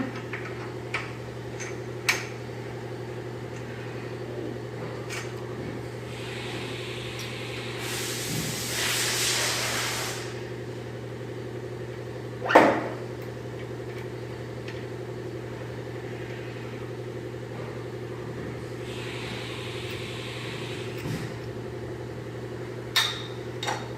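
Steady machine hum, with a few sharp metal clicks and knocks as a steel safety chuck insert is bolted back in, the loudest knock about twelve and a half seconds in, and two stretches of hiss.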